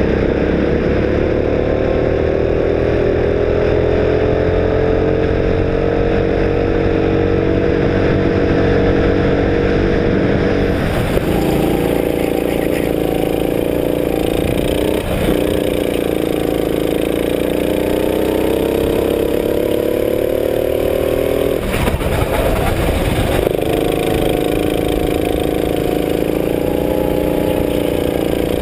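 Sodi go-kart engine heard from on board at racing speed, its pitch climbing slowly for the first ten seconds. About ten seconds in the sound switches to another kart's engine, which dips briefly and picks up again a few times as it slows for corners and accelerates out.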